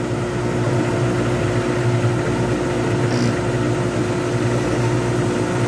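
Lathe motor running at a steady hum as it spins a poured pen blank, with a hand-held turning tool cutting at the blank.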